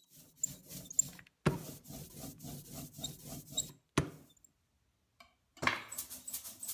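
Ink roller (brayer) rolled back and forth through tacky printing ink, a rhythmic sticky crackle of about three strokes a second, building up a thin, even ink layer. There is a sharp click about four seconds in.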